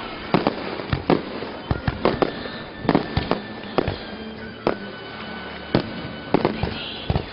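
Aerial fireworks bursting in the sky: a rapid, irregular string of sharp bangs, at times several a second, over a steady hiss.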